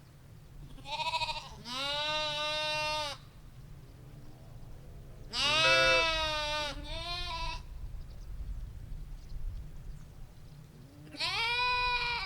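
Sheep bleating: about five wavering calls, the loudest about halfway through, over a low background rumble.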